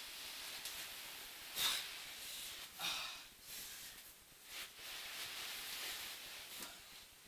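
Soft scuffing and rustling of a body being dragged by the legs across carpet, with two short louder bursts about one and a half and three seconds in.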